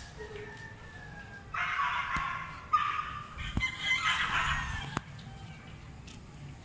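A rooster crowing outdoors, a drawn-out call in two or three parts, with a few light clicks.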